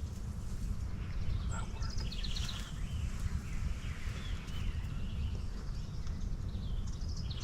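Songbirds singing short, rapid high trills twice, over a steady low rumble.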